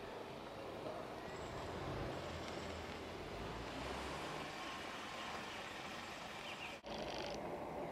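Outdoor background noise with the low rumble of road traffic, stronger as a vehicle passes about two to four seconds in. Near the end the sound drops out for an instant.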